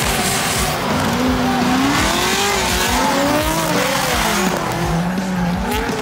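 Drift cars sliding in tandem, engines revving hard with the pitch rising and falling as the drivers work the throttle, over the steady hiss and squeal of tyres spinning on the track.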